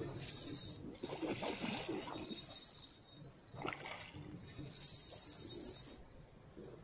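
Hooked salmon trout splashing at the water's surface close to a landing net, in four short bursts of splashing.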